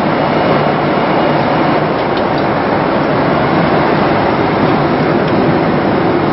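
Steady cabin noise of a Boeing 767 airliner in flight, an even rush of airflow and engine noise heard from inside the cabin.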